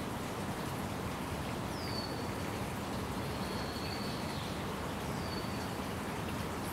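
Steady outdoor background noise with a bird whistling three high notes: the first and last slur down and then hold briefly, and the middle one is a longer, level note.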